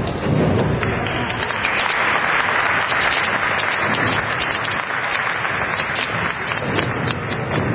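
Audience applauding, building up about a second and a half in and thinning out near the end.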